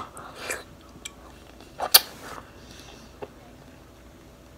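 Quiet chewing of a mouthful of pineapple, with a few short sharp mouth clicks, the loudest about two seconds in.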